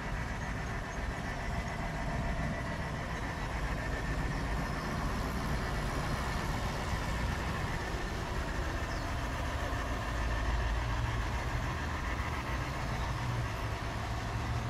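G scale model train running on outdoor garden track, a steady low rumble, with a deeper steady hum coming in about ten seconds in.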